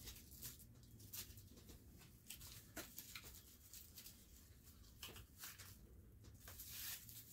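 Faint, irregular rustles and crackles of a small item's plastic packaging being handled and opened, over a low steady room hum.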